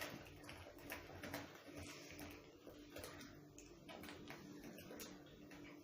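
Faint, irregular scraping and tapping of a spoon stirring thick cake batter in a cup.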